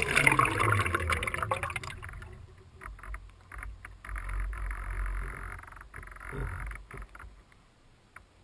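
Water splashing and sloshing against the hull of a radio-controlled flying boat as it settles after touchdown. Its four electric motors wind down in the first second or two. The splashing comes and goes in patches and fades away near the end.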